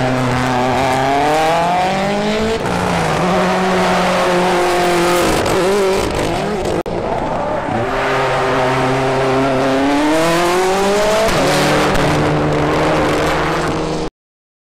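Rally car engine revving hard through the gears: the pitch climbs, drops at each upshift and climbs again, over a haze of tyre noise. The sound breaks off briefly about seven seconds in and cuts to silence just before the end.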